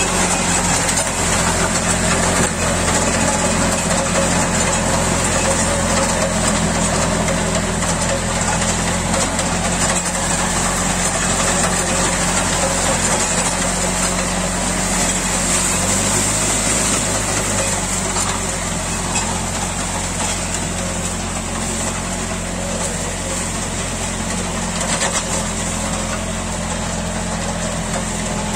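John Deere 3036 EN tractor's diesel engine running steadily under load as it drives a rotavator tilling the soil, with the engine note shifting briefly about halfway through.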